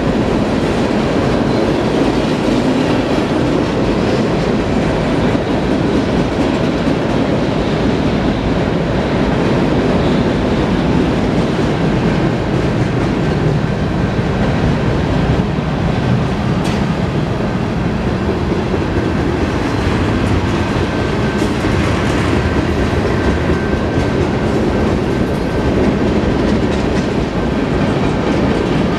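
BNSF freight train passing close by: a steady, loud rumble of steel wheels rolling on the rail, with a clickety-clack as the wheels of the empty intermodal well cars and tank cars cross the rail joints.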